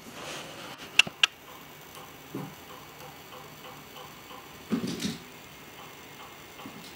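Faint, steady ticking, about two ticks a second, with two sharp clicks close together about a second in and a couple of soft thuds later on.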